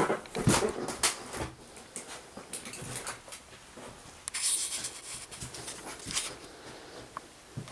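Scattered knocks and scuffs of someone moving through a cluttered room, loudest in the first second and a half, with a brief rustle about four and a half seconds in.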